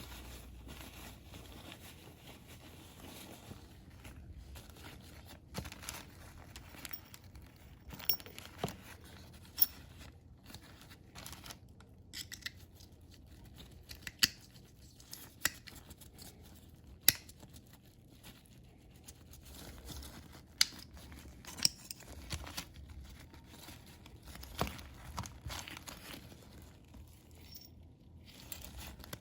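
Hands working on an oil filter's parts during disassembly and cleaning: irregular sharp clicks and small taps of parts knocking together, with light scraping and rustling between them.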